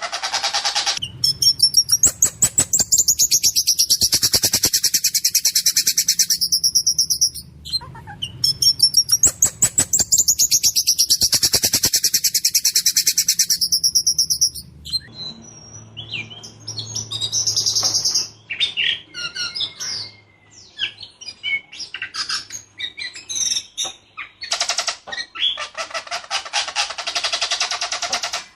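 Whistling thrush (ciung batu) singing a loud, harsh song of long rapid-fire rattling trills, each several seconds long, with shorter varied notes between them.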